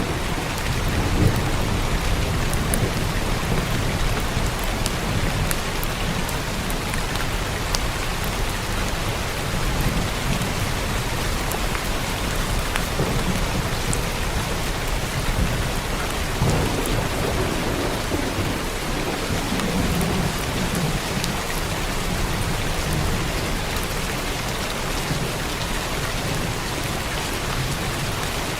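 Steady rain falling on a roof, with thunder rumbling low and swelling several times, and scattered sharp drop impacts.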